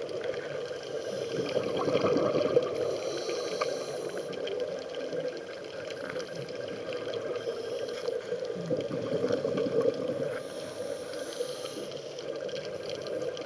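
Underwater sound of a scuba dive: a diver's regulator breathing and gurgling exhaled bubbles over a steady hum, swelling louder twice, early and again about two-thirds through.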